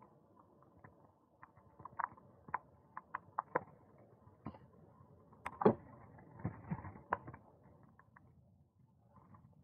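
Bicycle being ridden along a paved path, rattling and creaking: irregular light clicks and knocks, the loudest a little over halfway through.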